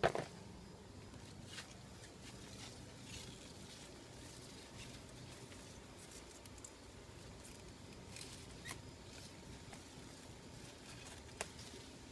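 Faint rustling of chili pepper plant leaves and stems as peppers are picked by hand, with a few light snaps and clicks. A sharp knock sounds right at the start.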